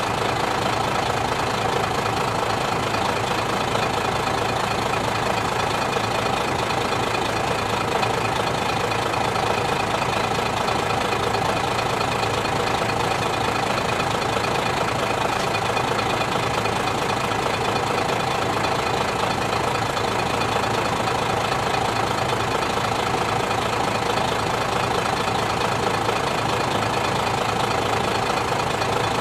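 Diesel engine of a CR70 railcar idling steadily while the car stands still, heard from its open side window.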